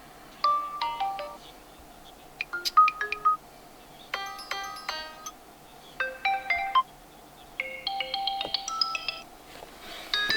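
Infinix Smart 7 ringtones previewed one after another: five short electronic melodies, each a few notes lasting a second or so, separated by brief pauses.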